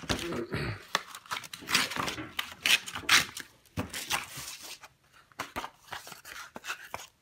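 Sheet of coarse 60-grit sandpaper being creased and torn by hand into a smaller piece: several loud rasping rips, then softer paper rustles and crinkles.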